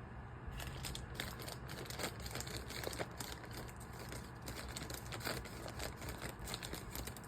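A package being opened by hand: packing material crinkling and rustling, with scattered sharp crackles.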